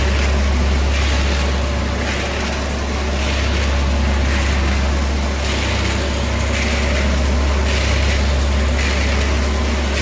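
CH-series stainless steel trough mixer running: a steady low motor hum, with a swish of granules about once a second as the paddle agitator sweeps through the load.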